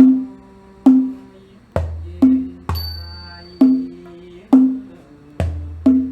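Thai classical ensemble playing a slow passage: struck, ringing pitched notes about once a second over deep drum beats, with a bright high ringing stroke near the middle.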